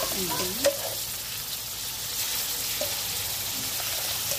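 Oil sizzling steadily in a wok as pieces of catfish are set in among frying ginger, onion and garlic, with one sharp knock about half a second in.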